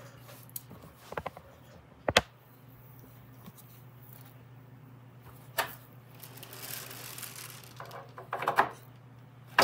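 Small metal parts and tools clicking and clinking as they are handled on a workbench: a few separate knocks, the loudest about two seconds in, and a quick cluster near the end, over a steady low hum.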